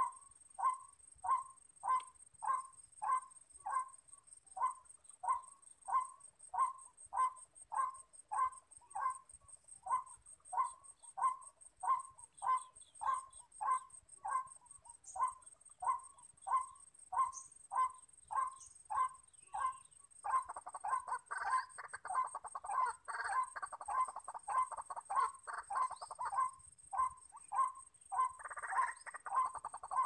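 White-breasted waterhen calling: a long run of evenly repeated single 'kwak' notes, somewhat under two a second. About two-thirds of the way through it breaks into a denser, rapid chattering chorus.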